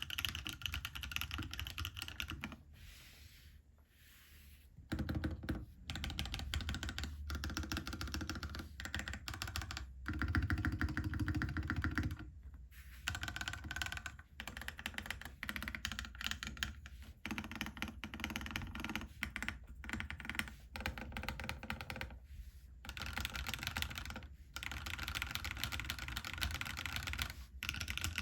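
Fast typing on a Kalam Dalco 959 custom mechanical keyboard with Akko POM Pink switches lubed with Krytox 105, on an aluminium plate: a dense run of keystroke clicks. It is broken by a pause of about two seconds a few seconds in and a few shorter pauses later.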